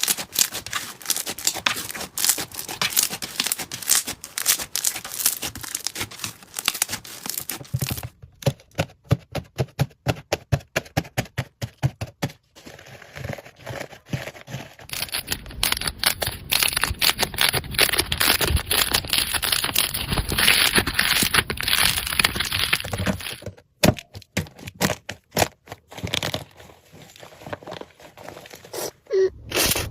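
Slime being squished and pressed by hand, with dense crackling and popping clicks. The texture changes about 8 s in to sparser clicks, grows dense and noisy from about 15 s, and turns sparse again near the end.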